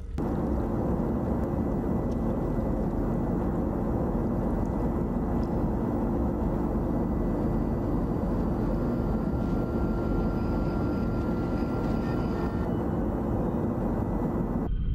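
A steady rumbling drone with a constant low hum underneath, starting and cutting off abruptly.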